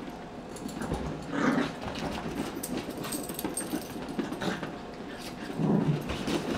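Small dogs playing rough, with two louder dog vocal sounds, about a second and a half in and again near the end, over light scuffling.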